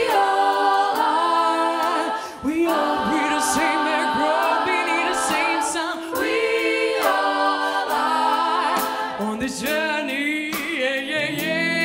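Gospel choir singing sustained chords in close harmony, a cappella, with a solo voice wavering in vibrato above the chords. A lower part comes in near the end.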